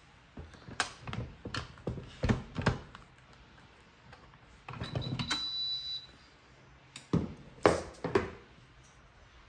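Kitchen handling noises: a run of sharp knocks and clicks as utensils and dishes are picked up and set down, with a noisy stretch lasting about a second around the middle and three more knocks near the end.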